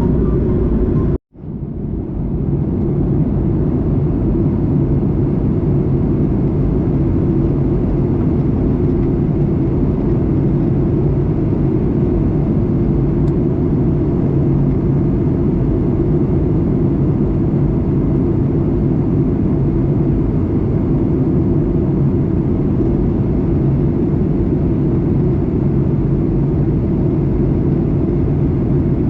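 Steady in-flight cabin drone of a Boeing 737-800: the CFM56 engines' hum blended with airflow noise past the fuselage. The sound drops out completely about a second in and fades back up.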